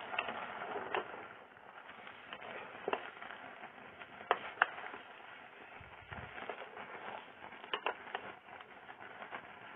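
Steady hiss of a pot boiling over a gas flame, with a few sharp knocks of a spoon against the aluminium pot, two of them close together about halfway through and again near the end.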